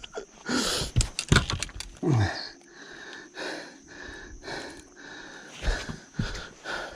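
A quick run of sharp clicks, then a person's fast, heavy breathing, about two breaths a second.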